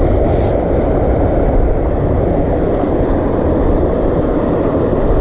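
Steady rush of water pouring over a low concrete spillway: a dense, even, low rumble with no breaks.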